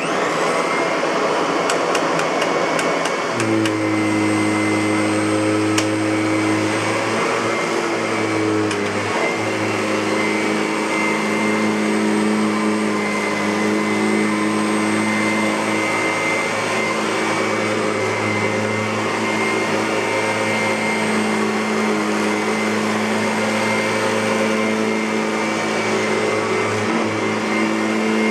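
Kirby Avalir G10D upright vacuum cleaner switched on and running steadily with a high whine, a few light ticks in the first seconds, and a lower hum joining about three and a half seconds in.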